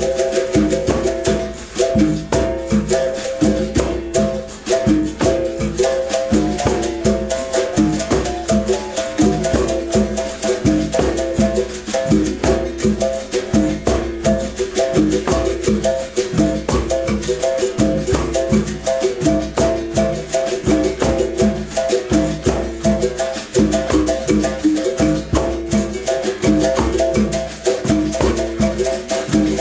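Berimbau music with the rattle of a shaker. The twanging bow and shaker keep a steady, even rhythm throughout.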